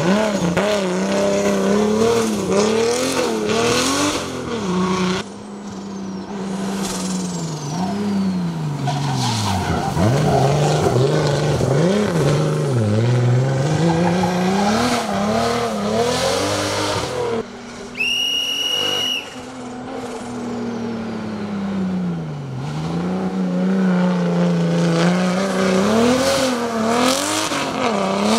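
BMW E30 race car's engine at full racing effort, revving up and dropping again over and over as it shifts and brakes through hairpins. Tyres squeal, most clearly in one high steady squeal of about a second near two-thirds of the way through.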